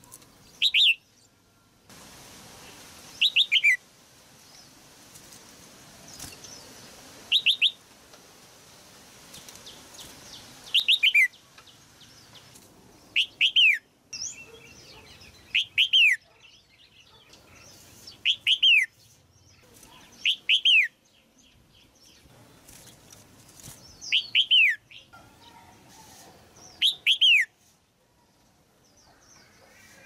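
Red-whiskered bulbul calling: short phrases of two or three quick falling whistles, repeated about every two to three seconds.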